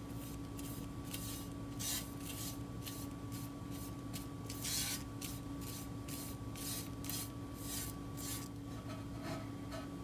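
Foam brush swishing Mod Podge onto a stainless steel tumbler: a run of short strokes, about two or three a second, that stops near the end, over a faint steady hum.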